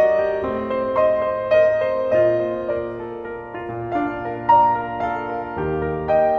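Background music: soft, slow piano playing a gentle melody.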